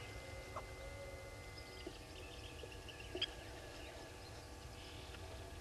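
Faint outdoor waterhole ambience: scattered distant bird calls over a low steady rumble, with one short sharp click about three seconds in.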